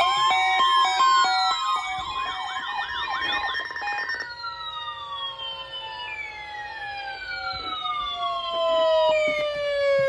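Several sirens sounding together, with a two-tone hi-lo pattern, wailing sweeps and a fast yelp layered over one another. From about four seconds in, they all wind down in long falling glides, then cut off suddenly.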